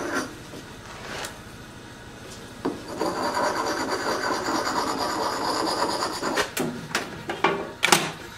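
A hatchet being sharpened by hand: rough metal-on-metal scraping in a steady run of strokes through the middle. A few sharp clicks and knocks follow near the end, the loudest just before it ends.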